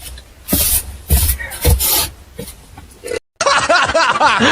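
People laughing: three short breathy bursts of laughter about half a second apart, then after a brief cut, a run of voiced laughing.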